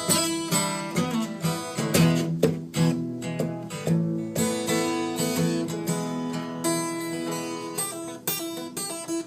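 Acoustic guitar strummed in a steady rhythm, playing chords between sung verses.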